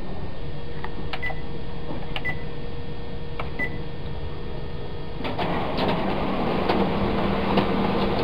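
Photocopier keypad beeping and clicking as its buttons are pressed. About five seconds in, the copier starts a copy run with a steady whirring hum.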